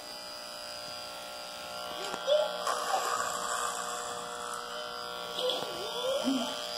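Electric hair clipper running with a steady hum as it trims hair.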